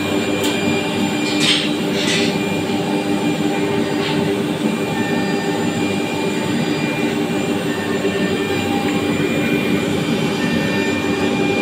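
Double-head CNC router's two spindles running as they carve patterns into a wooden panel, with dust extraction drawing through the hoses: a loud, steady machine drone with a held whine. Two short hissing bursts come about one and a half and two seconds in.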